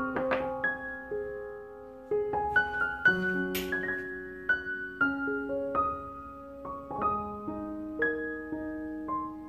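Background piano music: a slow, gentle melody of single notes that ring and fade, with a brief bright swish about three and a half seconds in.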